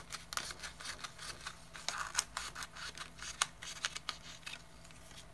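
Scissors cutting a sheet of paper: a run of short crisp snips, about three a second, that stops about four and a half seconds in.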